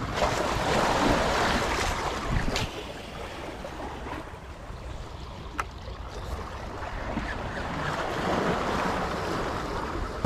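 Small waves lapping and splashing against shoreline rocks, with wind on the microphone, louder in the first couple of seconds. A couple of sharp clicks, about two and a half and five and a half seconds in.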